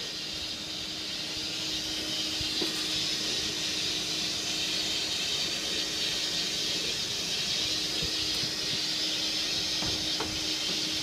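Industrial gable/wall-mount exhaust fan running steadily: an even rush of air with a steady low hum under it.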